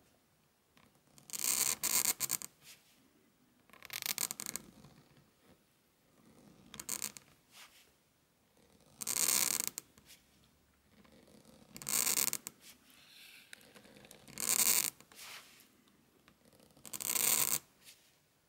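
Goose quill scratching across sandarac-dusted hot-pressed watercolour paper as letters are written. About seven short scratchy pen strokes, each under about a second, come a couple of seconds apart.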